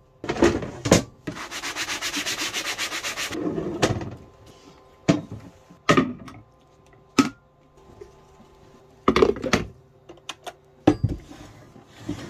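A fast, even rubbing rasp for about two seconds, then a string of separate knocks and clinks as glass bottles, jars and a glass coffee carafe are handled and set down on a countertop.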